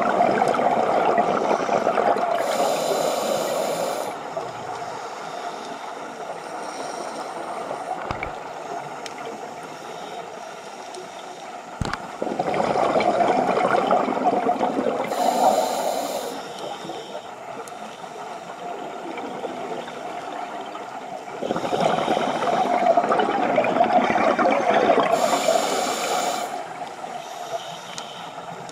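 A scuba diver's regulator exhaling: three long rushes of gurgling bubbles about ten seconds apart, each lasting about four seconds, with a quieter watery hiss between breaths.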